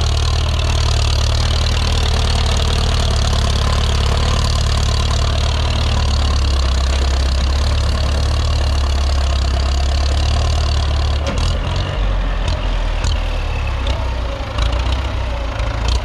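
Ford 6610 tractor's four-cylinder diesel engine running steadily, then dropping to a lower, rougher speed about eleven seconds in, with a few sharp clicks after the change.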